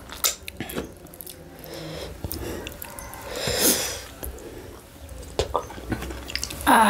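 Close-up eating sounds from food eaten by hand: scattered soft clicks of chewing and lip smacks, a longer breathy, hissing sound about halfway, and a louder breathy sound near the end.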